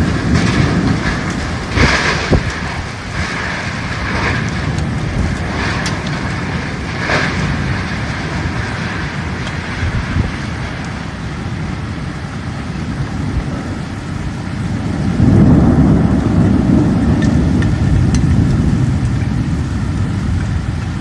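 Heavy thunderstorm rain and wind making a loud, continuous rushing noise, with several brief louder gusts or splashes in the first eight seconds. A low rumble swells about fifteen seconds in.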